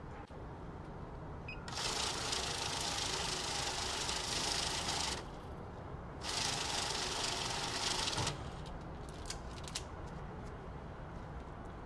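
Safescan banknote counter running two counts of a stack of bills, each a rapid whir of notes riffling through the feeder. The first lasts about three and a half seconds and the second about two, with a short pause between. A few light clicks follow.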